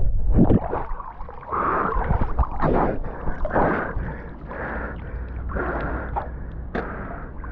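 Water sloshing and gurgling around an action camera as a diver comes up from underwater to the river surface, in irregular swishes roughly once a second.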